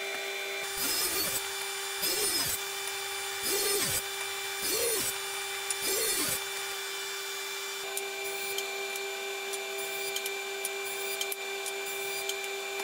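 Table saw crosscutting Douglas fir framing lumber into short blocks: five quick cuts about a second apart over a steadily running machine. Each cut is briefly louder, and the saw's pitch dips and recovers as the blade goes through the wood. The second half holds only the steady running hum, with no cuts.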